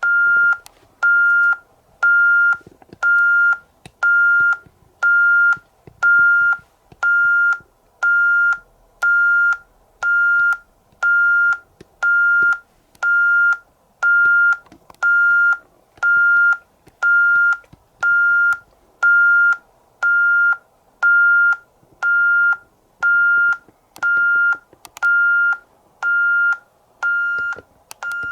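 Alarm system keypad beeping steadily, one tone about once a second, after the system has been armed: the exit-delay countdown.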